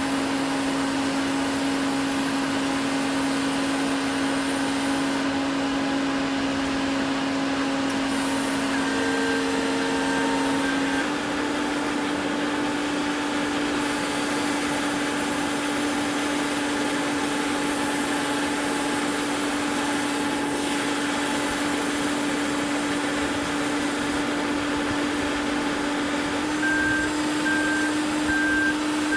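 Heavy construction machine running with a steady mechanical hum that shifts slightly higher about a third of the way in. A warning beeper sounds in quick repeated beeps briefly about nine seconds in and again near the end.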